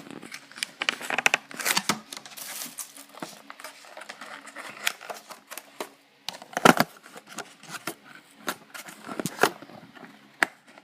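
Phone-case retail packaging being wrestled open by hand: irregular crinkling, rustling and tearing with scattered clicks and snaps, the sharpest snap about two-thirds of the way through.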